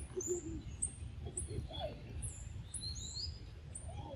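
Wild birds calling: quick high chirps, several a second, each dropping in pitch, over a low steady rumble.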